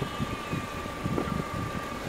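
A car driving across grass: engine and tyre rumble, with uneven wind buffeting on the camera held out of the driver's window. A thin steady whine runs along with it and stops near the end.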